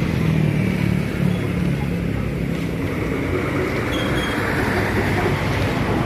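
Steady road traffic noise: a continuous rumble with a vehicle engine hum that is strongest in the first second or so, then eases.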